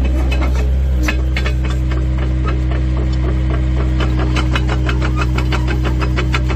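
Volvo EC55C mini excavator's diesel engine running steadily while its raised steel tracks run, with a rapid clatter of track-link clicks that gets busier in the second half. A steady whine comes in about a second in.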